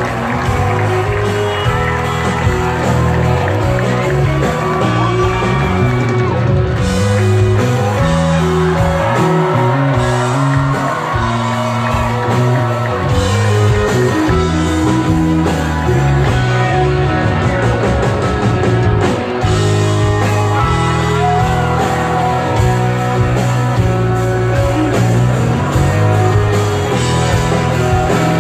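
A live country band playing loudly, with electric guitar over a steady bass and drums, and some singing.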